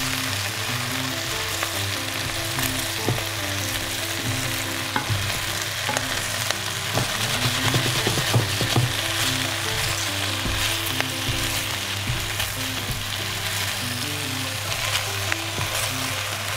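Chinese cabbage and pork belly sizzling as they stir-fry in a pot, turned over with tongs, the tongs clicking against the leaves and pot. The stirring is busiest about eight seconds in.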